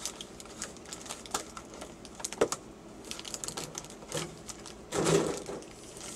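Pokémon card booster packs being handled: a run of irregular light clicks and taps, with a louder rustle about five seconds in.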